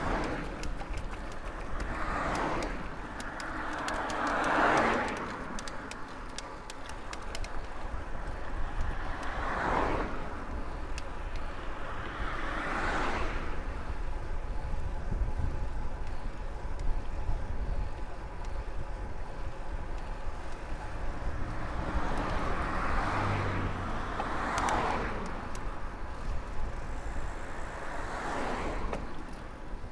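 Road traffic heard from a moving bicycle: several cars pass one after another, each a swell of tyre and engine noise that rises and fades over a second or two, over a steady low rumble.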